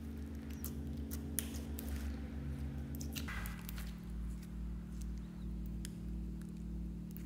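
Glossy purple slime being kneaded, stretched and folded by hand, giving irregular wet clicks and pops from trapped air, over background music whose low notes change about three seconds in.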